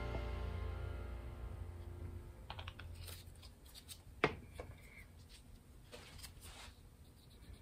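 The last chord of background music ringing out and dying away. It is followed by a few faint, scattered light clicks and taps, one sharper than the rest about four seconds in.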